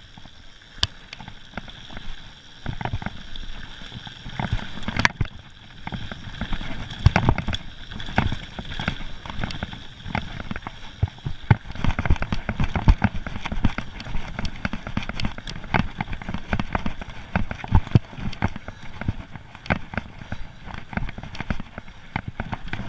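Mountain bike ridden at speed down a rough gravel and stone trail: a constant irregular clatter of knocks and rattles as the tyres and frame hit stones, over the crunch of tyres on loose gravel.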